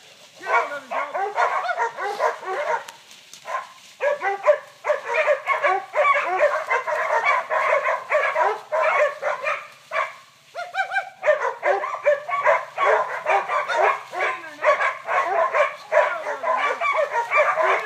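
Catahoula cow dogs barking rapidly and almost without pause while working a wild bull, with brief lulls about three and a half and ten seconds in.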